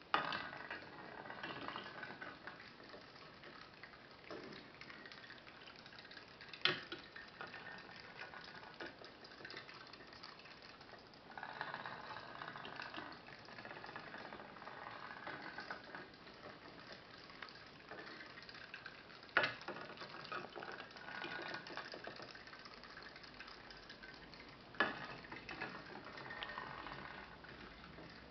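Putt-putt (pop-pop) toy boat's steam engine, a flame-heated quartz test-tube boiler feeding two exhaust tubes, running with a fast crackly putting that swells and fades in waves. Four sharp clicks stand out over it.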